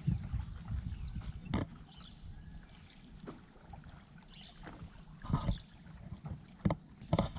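Canoe being paddled on calm water: paddle strokes and water sloshing and lapping at the hull, with a few sharp knocks, the loudest a pair near the end.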